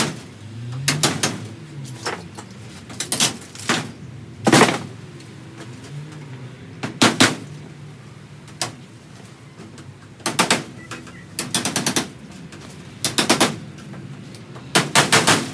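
Hand hammer striking the caravan's timber wall frame in short bursts of quick blows, a cluster every second or two.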